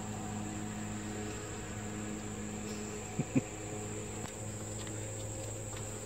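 Steady, continuous high-pitched chirring of insects, with a low steady hum beneath it. Two short, louder sounds come close together a little after three seconds in.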